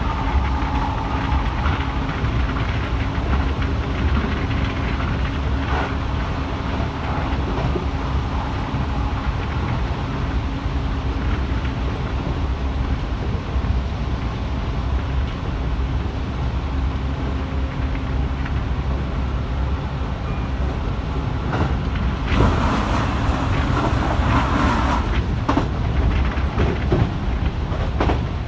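Keihan 3000 series electric train running at speed, heard from inside the front car: a steady rumble of wheels on rail, with occasional clacks over rail joints. About 22 seconds in there is a brief, noisier stretch.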